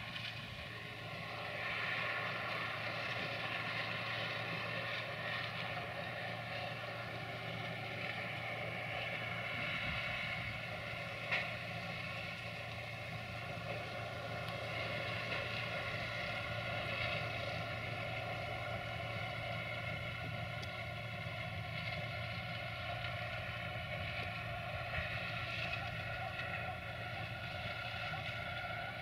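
UTB Universal U650 tractor's diesel engine running steadily, driving a trailed forage harvester as it chops standing maize. There is a single sharp click about eleven seconds in.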